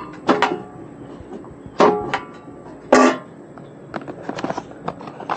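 Hand tool at work on a network cable: several sharp metallic clacks, each with a short ring, followed by a run of lighter clicks from about four seconds in.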